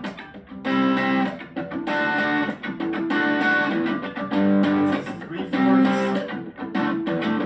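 Electric guitar strumming chords, roughly one stroke a second, through a Blackstar Fly 3 mini battery amp with its gain turned up to half.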